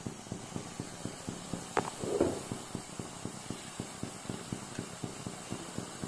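Wheat-flour jalebi batter frying in hot ghee: a steady crackle of quick pops, several a second, over a faint sizzle as fresh spirals are piped into the oil. A short louder sound comes about two seconds in.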